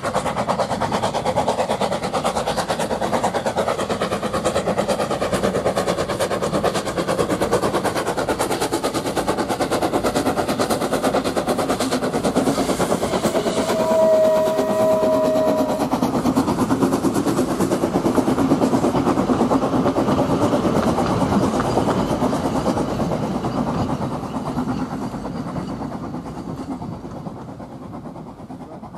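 Narrow-gauge steam locomotive working past with a train of hopper wagons: rapid exhaust beats and wagons clattering over the rail joints. A brief high tone sounds about halfway through, and the train fades away near the end as it draws off.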